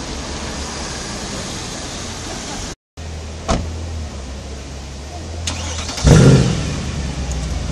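Mercedes-Benz C63 AMG's 6.2-litre V8 running at idle, with a sharp click about halfway through, then a sudden loud burst of revs about six seconds in that falls back to a steady idle.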